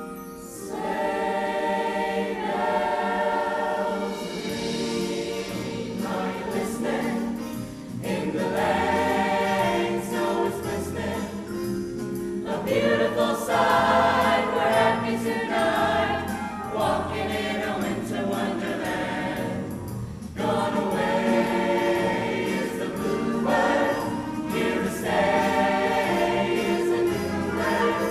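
A choir singing in sustained phrases, with short breaks between them.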